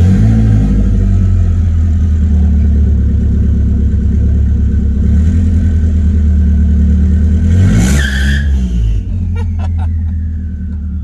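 Engine of a 1996 Nissan Hardbody pickup running and revving as the truck is driven on its freshly installed stage 2 clutch, its pitch rising and falling. About eight seconds in comes a brief rush of noise, after which the engine settles lower and a high whine falls away.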